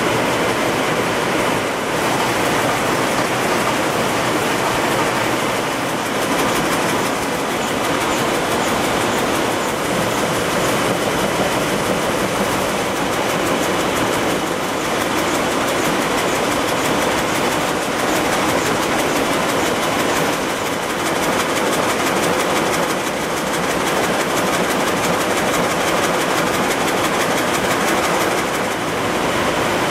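Steady din of towel-mill machinery: a dense, fast, even rattle that runs without a break.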